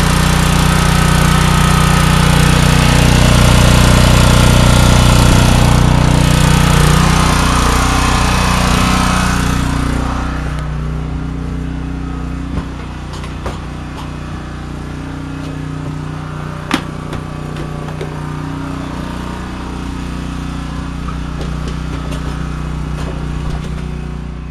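Small generator engine running steadily just after a cold start in freezing weather, a low even drone. About ten seconds in it becomes noticeably quieter and keeps running, with a few sharp clicks.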